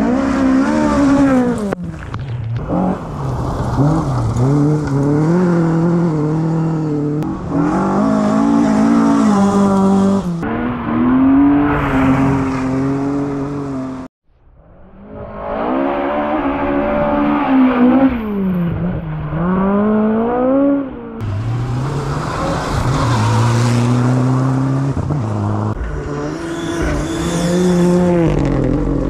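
Rally cars driven flat out on gravel forest stages, one after another. Their engines rev up and fall back through the gears, with a short gap about halfway. Near the end a Ford Fiesta R5's turbocharged four-cylinder engine goes past.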